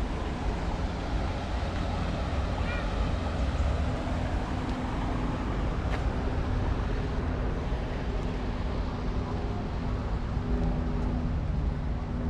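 Outdoor ambience of a steady low rumble, with a humming engine tone that comes in about four seconds in and holds steady.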